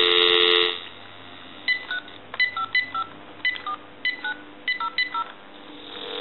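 Telephone line audio from a GE cordless phone: dial tone for the first moment, then a quick string of about a dozen short touch-tone (DTMF) beeps as a number is dialed. A steady tone swells in near the end.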